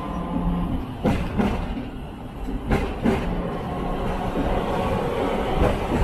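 Hong Kong double-decker electric tram running along its street track, heard from on board: a steady low rumble with a few sharp clacks of the wheels over rail joints.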